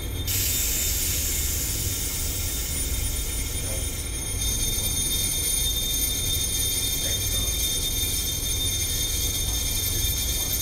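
Electric bell ringing continuously inside a sealed plastic container, loud again because air has been let back in around it after the vacuum. It grows louder just after the start and again about four seconds in.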